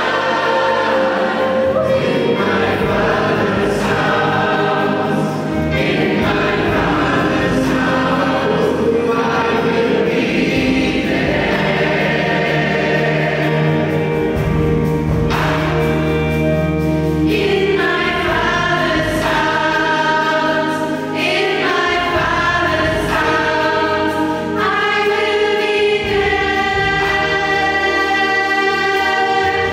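Gospel vocal group of men and a woman singing together in harmony. Long chords are held near the end.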